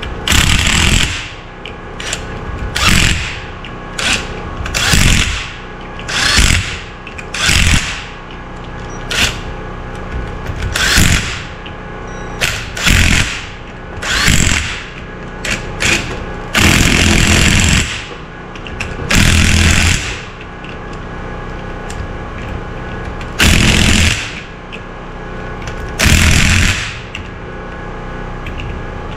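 Impact tool hammering in repeated short bursts, well over a dozen of them, each lasting from under a second to about a second, with pauses of one to three seconds between. The longest bursts come past the middle.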